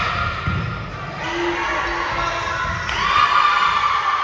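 Athletic shoes squeaking on an indoor court floor during volleyball play: a few long squeaks that slide up in pitch and hold, one near the end, with dull thuds of feet or ball on the floor.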